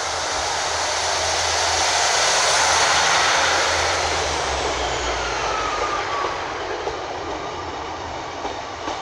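Class 156 diesel multiple unit pulling away from the platform, its diesel engines working under power and the coaches rushing past. It is loudest about three seconds in, then fades as the train draws away.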